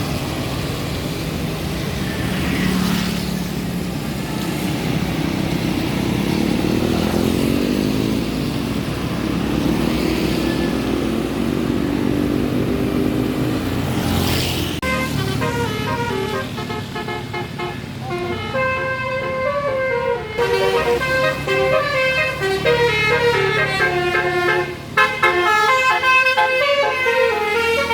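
Bus engine running, rising and falling in pitch as it revs. About halfway through, a multi-trumpet telolet air horn takes over, playing a quick tune of stepped notes.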